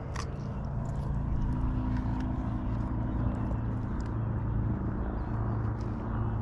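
Steady low engine-like hum, with a few faint clicks and knocks over it.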